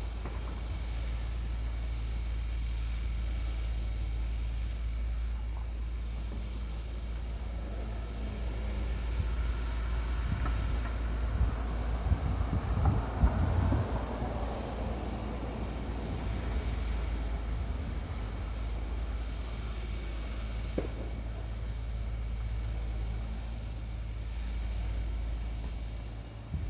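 Small farm machine's engine running steadily in the distance, with a low rumble underneath. The sound swells into a louder, crackling stretch about halfway through, then settles again.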